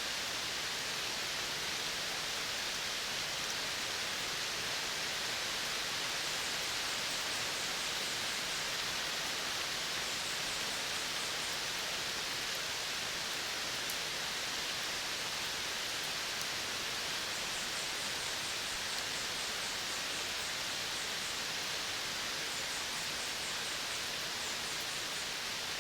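Steady, dense hiss of a midday outdoor nature soundscape, with faint, very high, rapid ticking trills that come and go several times.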